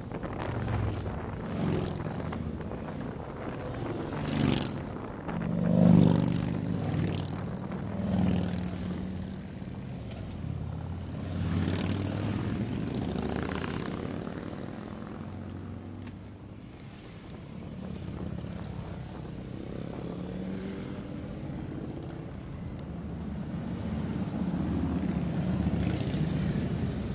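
A line of motorcycles, mostly large cruisers and touring bikes with a trike among them, passing close by one after another, each engine swelling and fading as it goes past; the loudest passes come about four and a half and six seconds in. Near the end the engines build again as a tight group of bikes comes up close.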